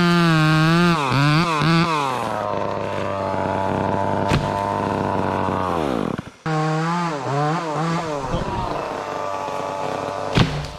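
Two-stroke chainsaw blipped up and down, then run steadily at full throttle through a cut in a pine top. About six seconds in its pitch sags sharply, then it revs up and down again, and a sharp crack comes near the end.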